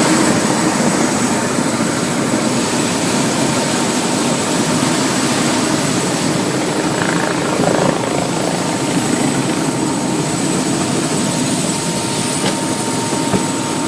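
Helicopter running steadily: a loud, even rush of rotor and engine noise with a faint steady whine.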